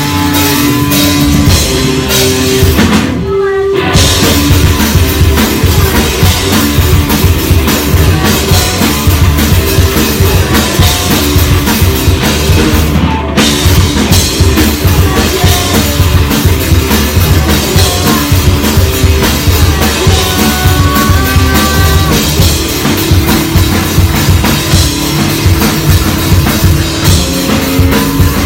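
Rock band playing live, loud, with a full drum kit driving under amplified instruments; the band cuts out for a brief break about three seconds in, then comes straight back in.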